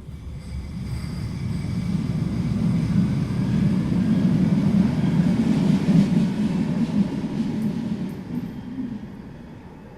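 Subway train departing, its low rumble building to a peak about halfway through and then fading away.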